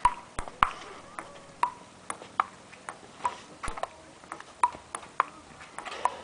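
Table tennis rally: a celluloid ball clicking back and forth off the paddles and a concrete table, about two hits a second, the table bounces ringing briefly with a ping.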